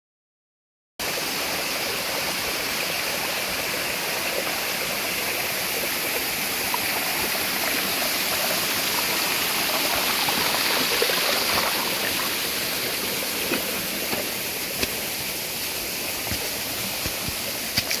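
Mountain stream rushing steadily over rocks, an even hiss of flowing water that cuts in abruptly about a second in, with a few light taps near the end.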